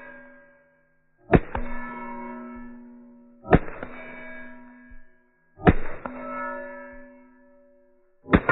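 .22 rimfire rifle fired four times at a slow, even pace, about two seconds apart. Each shot is followed at once by the hit on a steel plate, which rings with a clear tone that fades out over one to two seconds.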